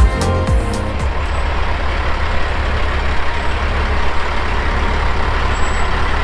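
A heavy diesel engine runs steadily with a deep rumble, after a little music fades out about a second in.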